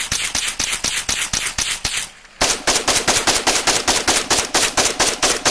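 AK-pattern rifle firing on full automatic: a burst that stops about 2 seconds in, then after a brief pause a second long burst of rapid shots, about ten a second.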